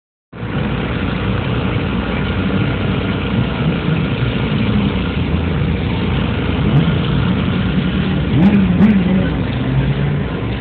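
Motorcycle engines running, with a few short revs rising and falling in pitch around the middle and again near the end, over a steady mechanical background.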